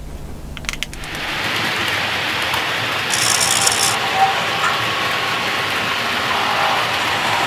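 Steady mechanical whirring from an OO gauge Bachmann Class 90 model electric locomotive, starting about a second in and running evenly after that.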